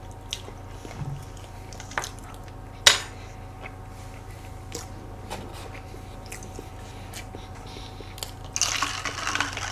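Quiet eating sounds: small clicks of metal forks against cake and plates, with soft chewing and mouth sounds of eating cake, over a steady low hum. A louder noisy stretch of rustling and chewing comes near the end.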